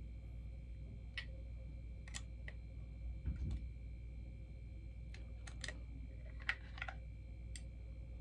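Scattered small clicks and taps from plastic and cardboard bobblehead packaging being handled, about ten in all, with a duller knock a little past three seconds in. A steady low hum runs underneath.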